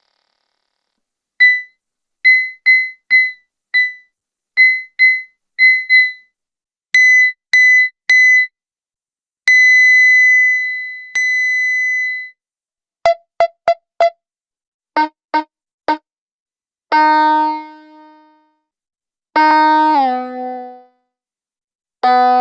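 Homemade analogue percussion synthesizer circuit sounding electronic notes. First comes a rhythmic run of short high beeps that die away quickly, then a longer held tone. After that come lower, richer notes, and the last one glides down in pitch.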